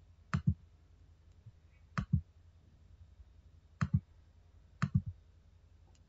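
Computer mouse clicking about four times, a couple of seconds apart. Each click is a quick pair or triple of sharp snaps.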